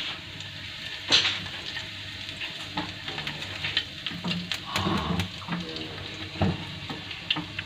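Chopped garlic sizzling in oil in a nonstick frying pan, being cooked to a light pink. A silicone spatula stirs it, with scattered light scrapes and taps against the pan over the steady sizzle.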